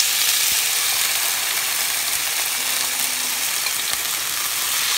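Seasoned chicken pieces sizzling steadily in hot oil in a frying pan as they are added, a bright, even hiss.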